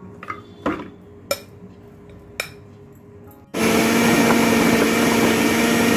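Usha Food Court food processor grinding cooked chicken and lentils for shami kabab. A few light clicks come first, then about three and a half seconds in the motor starts suddenly and runs loud and steady with a constant whine.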